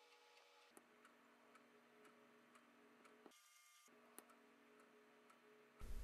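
Near silence: faint room tone with a few very faint ticks.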